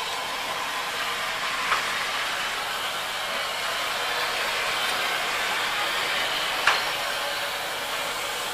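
Steam locomotive hissing steadily as it moves slowly along the platform, with steam escaping from its cylinders. Two short sharp knocks come through, one near the start and one near the end.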